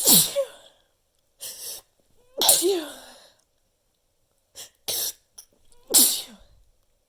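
A person sneezing three times in a row: once at the start, about two and a half seconds in, and about six seconds in. Quick, sharp breaths are drawn in before the second and third sneezes.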